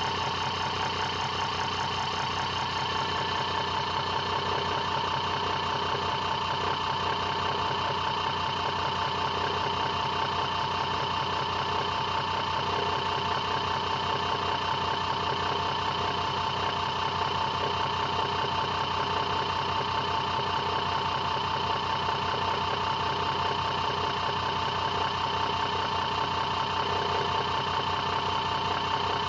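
Hoverboard brushless hub motor spinning at low RPM in a homemade transformer-coil generator rig: a steady electric whine over a fast, even buzzing pulse, unchanging throughout.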